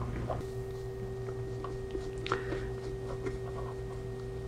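Small brush dabbing and stroking leather dye onto a leather bag, with faint soft ticks and taps, a slightly sharper one about two seconds in. A steady low hum runs underneath.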